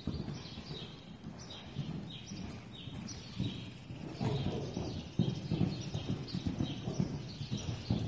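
An American Quarter Horse mare's hooves beating dull and soft on deep sand footing as she canters, growing louder about halfway through.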